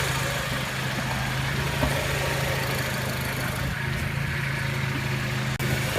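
Honda Element's 2.4-litre four-cylinder engine idling steadily under the open bonnet, with a light clicking from the top of the engine. The owner takes the clicking for a valve out of adjustment or a worn camshaft bed, not a rod knock. The sound briefly drops out near the end.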